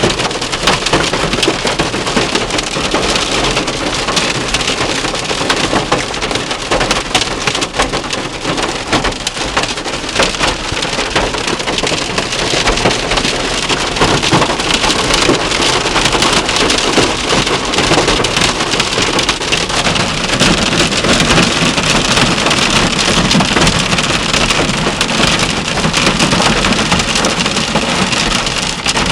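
Hail and heavy rain striking a car's roof and windows: a loud, steady, dense clatter of countless small impacts.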